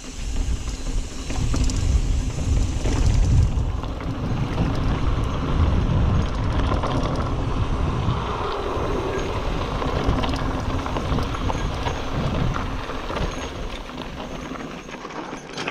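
A 2021 Giant Trance X mountain bike riding along a dirt singletrack. Wind buffets the microphone over the rush of the tyres on dirt, with small clicks and rattles from the bike. The noise eases a little near the end.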